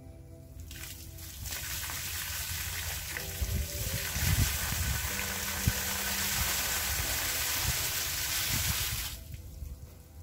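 Rainwater that pooled on a fabric kennel canopy gushing off its edge in a heavy sheet and splashing to the ground. It starts about a second in, runs steadily for about eight seconds with a few heavier splashes in the middle, then stops abruptly.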